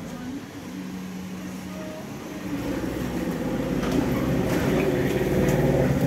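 Motor vehicle engine running, getting louder over the second half as it comes closer.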